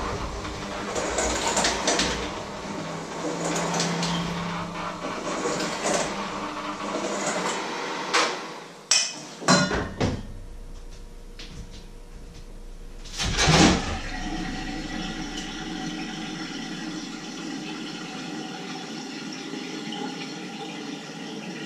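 Kitchen work sounds: uneven handling noise, a few sharp knocks of dishes and utensils about eight to ten seconds in and one louder knock a little later. Then a kitchen tap runs steadily into the sink.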